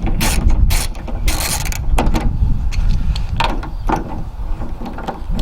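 Ratchet wrench with a 10 mm socket clicking in irregular runs as a screw is undone, over a steady low rumble.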